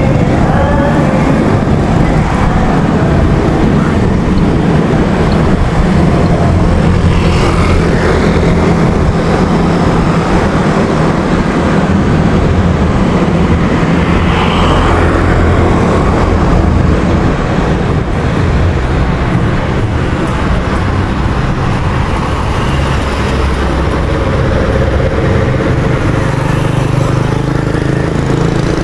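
Town street traffic heard from a moving bicycle: motorcycle and car engines running close by, under a steady low rumble of wind on the action camera's microphone.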